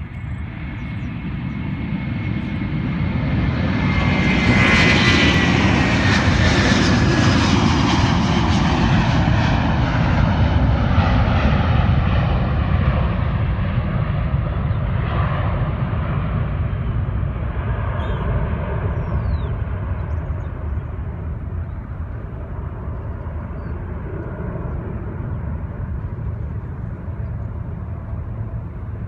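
Airliner passing close by, its engines building to a loud rush and then slowly fading away, with a high whine that falls in pitch as it goes past.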